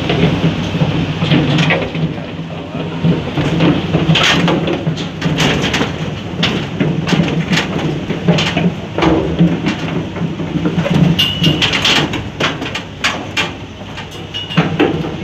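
Cattle hooves clattering and knocking on a cleated ramp and the truck's deck as the animals are loaded, over the steady low drone of a running engine. There are two brief high squeaks, one about eleven seconds in and one near the end.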